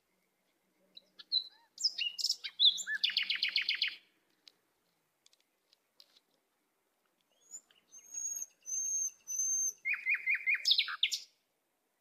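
White-eared bulbul calling in two bursts. About two seconds in comes a run of quick chirps. From about eight seconds in come repeated clear whistled notes, then a fast chattering run that ends suddenly.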